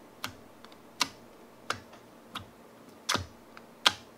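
Fingertip poking clear crystal jelly slime in its plastic case: short, sharp sticky clicks about every three-quarters of a second, six in all.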